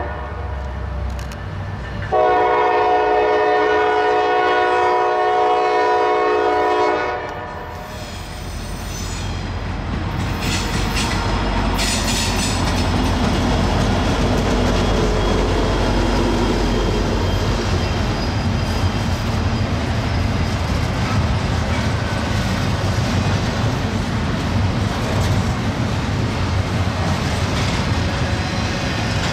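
Freight locomotive air horn, several notes at once: one blast ends at the start, then a long blast of about five seconds sounds for a grade crossing. The diesel locomotive then passes close with a heavy engine rumble, followed by the steady wheel-on-rail clatter of double-stack intermodal cars rolling by.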